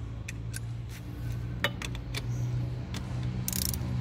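Socket wrench being fitted onto and tightening a motorcycle's bottom oil-strainer cap: several light metallic clicks, then a short ratcheting rasp near the end, over a steady low hum.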